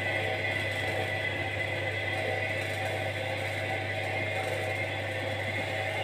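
Indesit washing machine running on test, giving a steady low hum with a whir as its brushed drum motor tries to turn the drum. The motor pulses instead of turning properly, which the repairer traces to sparking, worn carbon brushes.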